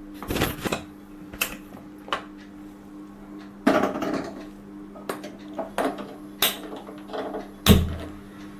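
Metal cookware being handled: a pressure cooker and its lid clinking and knocking in a string of separate clatters, the heaviest a thump a little before the end as the cooker is set down.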